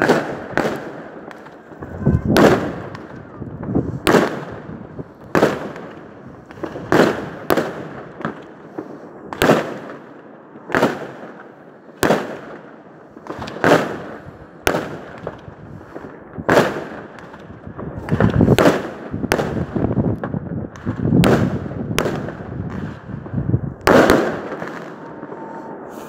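New Year fireworks exploding in the air: a steady run of sharp bangs, about one a second, each followed by a rolling echo.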